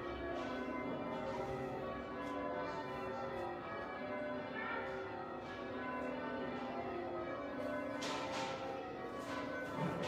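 A ring of church tower bells being change-rung, the strokes following one another without a break and their tones overlapping as they ring on, heard from inside the church.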